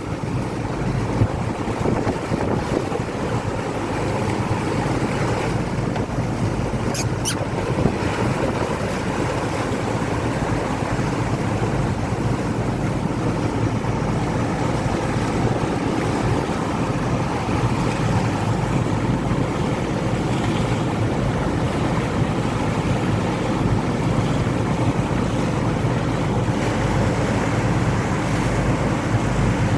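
Water rushing along the hull of a sailing boat under way, with wind buffeting the microphone: a steady, even rush of noise. Two brief sharp clicks come about seven seconds in.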